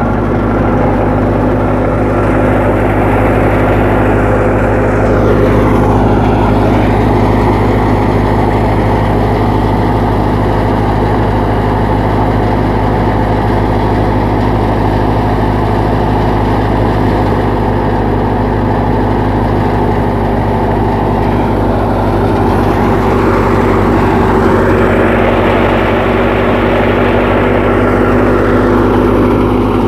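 Massey Ferguson 385 tractor's diesel engine running steadily, driving a wheat thresher. A loud rushing noise rides on the engine hum, swelling in the first few seconds and again near the end.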